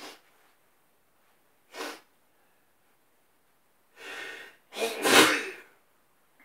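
A person sneezing: a short breath in, then a longer drawn-in breath and one loud sneeze about five seconds in.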